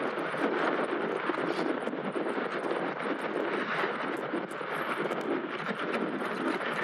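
Mountain bike tyres rolling fast downhill over a dirt trail. The steady rushing noise is mixed with wind on the microphone and small ticks of gravel.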